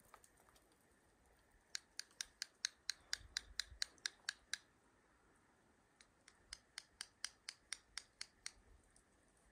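Hand-held squirrel call, its two parts tapped together in quick, sharp clicks to imitate a squirrel: two runs of about four clicks a second, with a short pause between.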